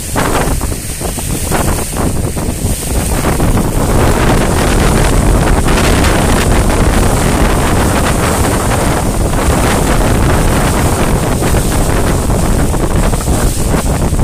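Wind buffeting a phone's microphone over the rush and splash of water along the hull of a speedboat under way. The rushing noise grows louder about four seconds in, as the boat picks up speed, and then holds steady.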